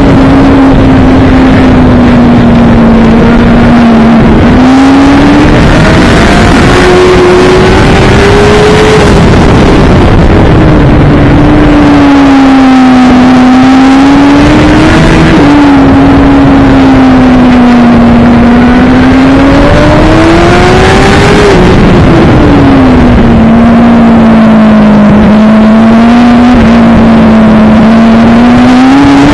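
Suzuki GSX-R1000 endurance racing motorcycle's inline-four engine heard onboard at racing speed, its pitch repeatedly sinking and then jumping back up as the rider works through the gears around the corners, over a steady rushing noise.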